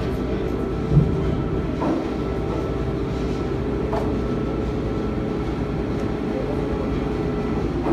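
Steady low mechanical drone of a running engine, with a few steady tones over a continuous rumble. There is one short thump about a second in.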